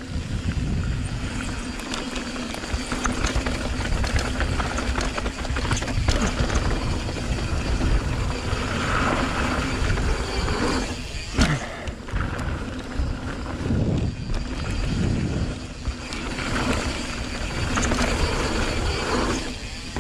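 Mountain bike ridden fast down a dirt and gravel trail: wind rushing and buffeting over the camera's microphone, with tyres crunching on the dirt and the bike rattling over bumps.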